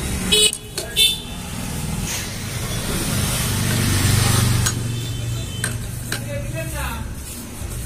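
Sharp metal clinks of a tool and bolt against a motorcycle clutch pressure plate, two loud ones about half a second and a second in and a few lighter ticks later, over a steady low hum that swells toward the middle.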